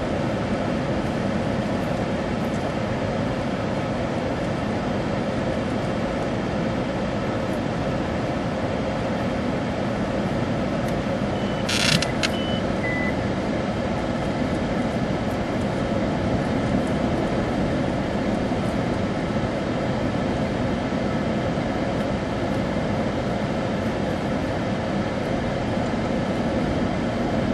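Steady rumble and hiss of a stationary vehicle's engine running, with faint steady hum tones. A brief sharp crackle comes about twelve seconds in.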